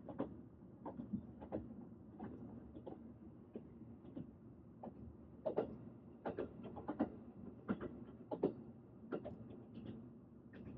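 Train running on rails: a steady low rumble with irregular clacks and knocks, a few of them louder near the middle.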